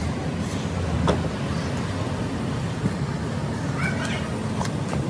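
Steady low rumble of background traffic, with a few light clicks from cardboard phone boxes being handled and their plastic wrap slit with a blade. A short bird chirp comes near the end.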